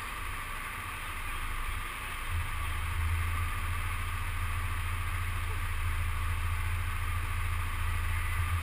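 Rental go-karts idling while held on the starting grid: a steady low hum that swells a little about two seconds in.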